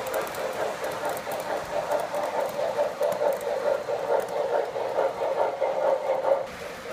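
O scale model train running on three-rail track, a steady rattle of metal wheels and motor with fine clicking. The sound drops away suddenly near the end.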